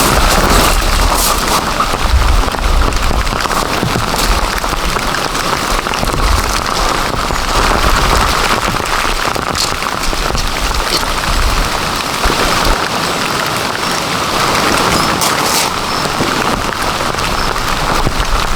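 Heavy rain falling steadily, with scattered sharp drop impacts standing out from the constant hiss.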